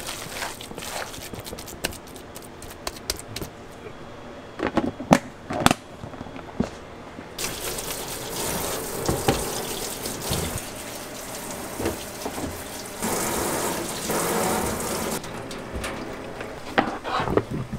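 Gloved hands working a tuna filling in a container, with irregular soft clicks and a few sharper knocks. About seven seconds in, a tap starts running into a stainless steel sink as cucumbers are rinsed under it, the water louder for a couple of seconds. Near the end come a few knocks as the wet cucumbers are set down in a plastic tub.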